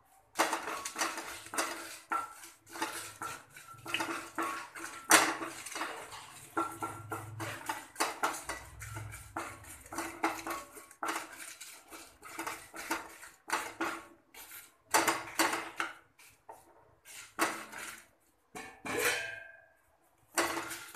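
Wooden spatula scraping and knocking against a non-stick kadai as dried red chillies are stirred in hot oil: a quick, uneven run of scrapes and taps, with short pauses near the end.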